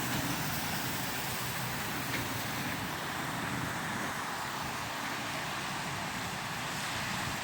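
Steady road traffic noise: cars and trucks passing, with no single vehicle standing out.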